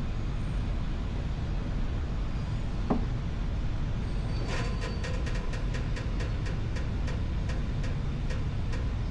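A jack under a Can-Am Spyder being slowly let down: a single knock about three seconds in, then a run of sharp clicks, three or four a second, that thin out toward the end, over a steady low rumble.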